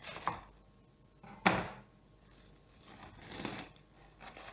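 Plastic film wrapping being cut open with a knife and peeled back by hand, crinkling in short rustles, the loudest a sudden one about a second and a half in.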